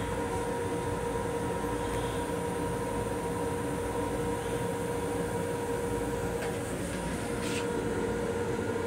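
Steady running noise of an MTA Long Island Rail Road M7 electric railcar heard from inside the car's restroom: an even rumble with a constant two-note hum. Two faint clicks come in the last few seconds.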